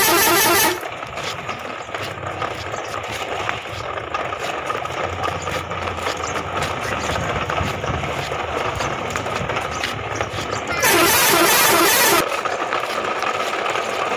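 Truck horn honking, ending just under a second in and sounding again for about a second and a half near the end, over a steady running truck-engine sound with a low rumble.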